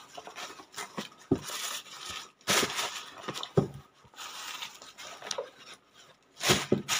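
Tissue paper crinkling and rustling in irregular bursts as it is pulled open inside a cardboard shoe box, with a few dull knocks in between.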